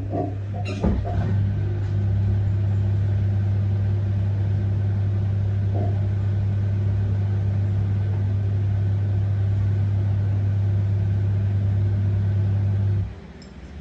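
An LG F1222TD washing machine's motorised part, most likely its pump or a water valve, running with a loud, steady low hum that cuts off sharply near the end, with a sharp click just after it starts.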